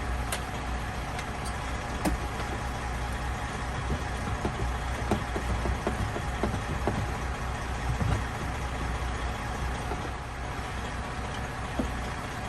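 Steady low rumble of an idling truck engine, with scattered light clicks and knocks of hand-tool work on the cab's interior trim.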